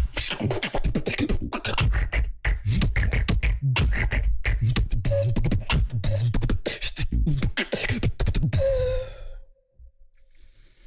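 Solo beatboxing into a microphone: a fast, dense run of kick drums, clicks and deep bass sounds. About eight and a half seconds in, it ends on a held note that fades out, leaving the last second or so nearly silent.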